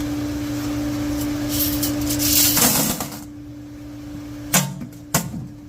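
Vibratory parts tumbler running with a steady hum and the loud hiss of its media churning, which drops away about three seconds in. Two sharp metallic knocks follow near the end.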